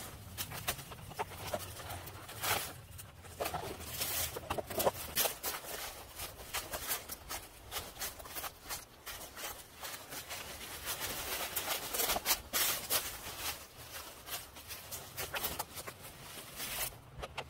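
Footsteps through dense leafy undergrowth and dry leaf litter, with leaves and stems rustling and crackling in quick, irregular bursts.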